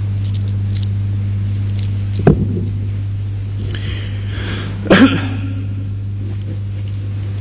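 Steady low electrical hum on an old lecture-hall microphone recording, with a short knock about two seconds in and a brief rustle ending in a sharp knock about five seconds in.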